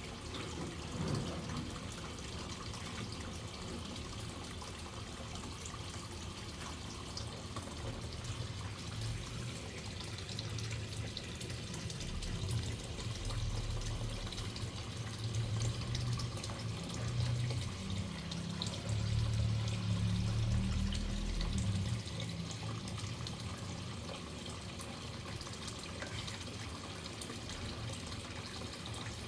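Waterfall rushing steadily. A deeper low rumble swells up between about twelve and twenty-two seconds in, then eases back.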